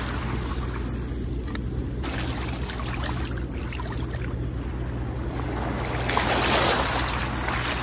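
Small waves washing onto a pebble beach, with one louder wash about six seconds in, over a steady low rumble.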